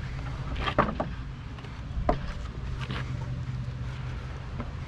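Vehicle engine running, a steady low drone, with a few sharp knocks or rattles about one, two and three seconds in.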